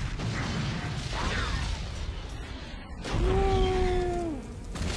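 Movie action soundtrack from a tanker-truck scene: a loud, continuous rumble of heavy engine and machinery noise. A steady horn-like tone comes in about three seconds in and sags in pitch as it ends about a second later.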